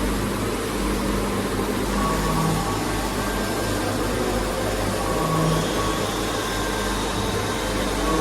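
Tornos-Bechler Deco 2000/20 CNC sliding-headstock lathe running: a steady machine hum with low tones and a higher tone that swell together about every three seconds.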